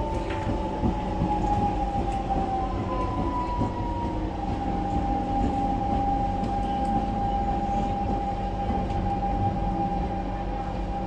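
Siemens C651 train's GTO-VVVF traction inverter and motors whining over the low rumble of the wheels, as the train slows into a station. The whine drops slightly in pitch over the first few seconds, then holds one steady pitch.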